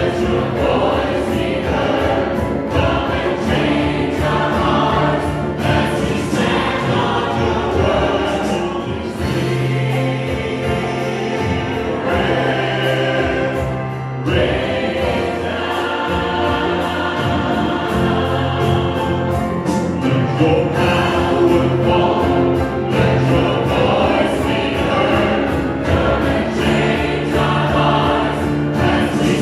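Live church worship music: a male lead singer and praise-team singers on microphones, backed by a choir, a drum kit and a bass guitar playing long held low notes.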